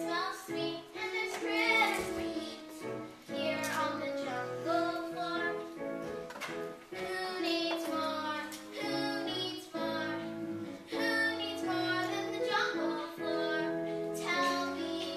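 Children singing a song together, with musical accompaniment.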